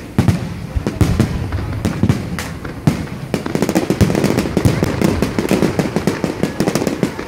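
Aerial fireworks bursting overhead: a few louder bangs in the first couple of seconds, then a dense, rapid crackle of many small reports from about halfway on.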